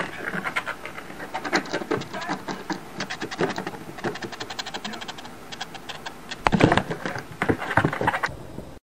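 Stick of a cat teaser wand scraped rapidly back and forth to attract a cat: a fast run of scratching strokes, louder about six and a half seconds in.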